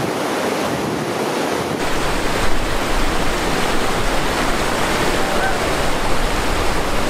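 River whitewater rapids rushing steadily; about two seconds in the rush gets fuller and deeper.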